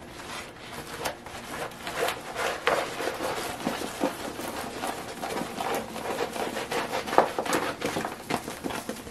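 Rolled diamond painting canvas being handled and rolled the opposite way: continuous rustling and crinkling with many small taps and clicks.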